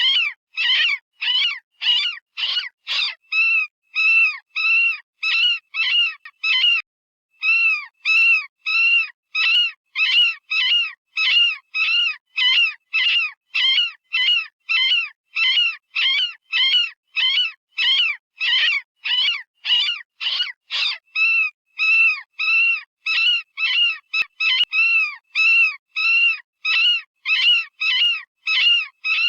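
Synthetic rabbit distress call, the kind used in electronic predator calls: short, high-pitched, screaming cries repeated about twice a second, each rising and falling in pitch. There is a brief pause about seven seconds in.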